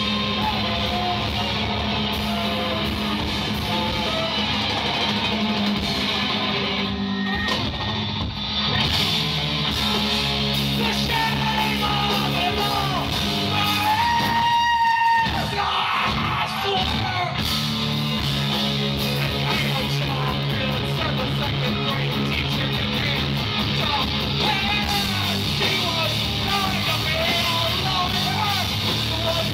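Live math-rock band playing: distorted electric guitars, bass and drums with a tenor saxophone, under shouted, half-sung vocals.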